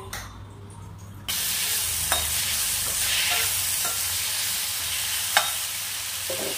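Sliced onion, tomato and garlic sizzling in hot oil in a frying pan while being stirred with a spatula, which knocks against the pan a few times. The sizzling starts suddenly about a second in.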